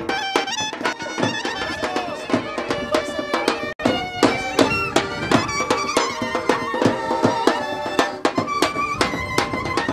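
Lively traditional folk-style dance music with a steady drum beat and a melody instrument playing over it, with a momentary dropout about four seconds in.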